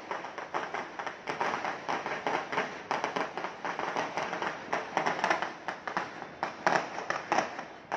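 Fireworks and firecrackers going off all over a city: a dense, unbroken stream of bangs and crackles, with several louder bangs in the second half.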